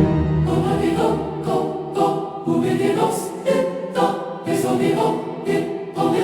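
Background music with a choir singing in phrases.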